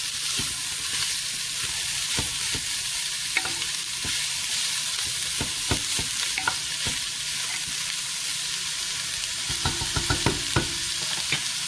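Ground beef, carrots and bell pepper sizzling as they sauté in a pan, with a steady hiss and a utensil now and then clicking against the pan as it is stirred, most often near the end.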